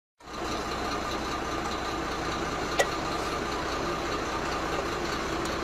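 A vehicle engine idling steadily, with one sharp click a little under halfway through.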